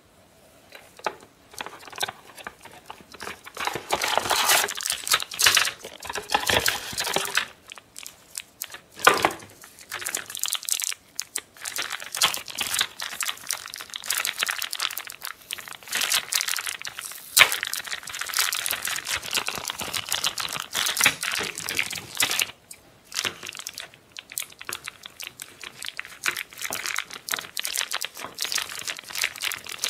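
Hands handling a cardboard toy box and crinkly plastic packaging: rustling and crinkling with scattered small taps and clicks, starting about a second in.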